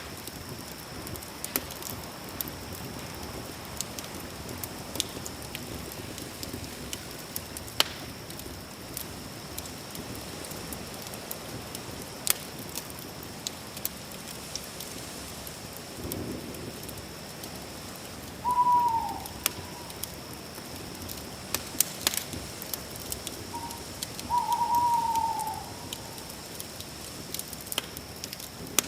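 Campfire crackling, with frequent sharp pops over a steady hiss. A steady high-pitched drone runs underneath, and an animal call falls in pitch twice, once about two-thirds of the way through and again, longer, a few seconds later.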